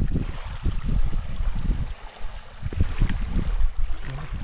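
Running water splashing and gurgling, over a low, uneven rumble that drops away briefly about two seconds in.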